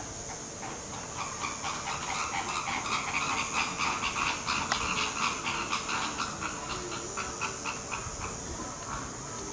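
Canada goose feeding from a stainless-steel bowl of pellets, its bill clicking and rattling against the food and the metal in a quick series of clicks that starts about a second in and dies away near the end.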